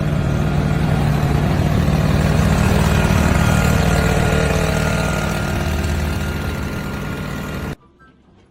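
An engine running steadily, loud and low, which cuts off suddenly near the end.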